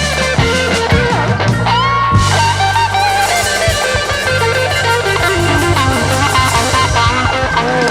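Instrumental band music: a lead melody that bends and slides in pitch, plausibly an electric guitar, over a steady bass line and drums.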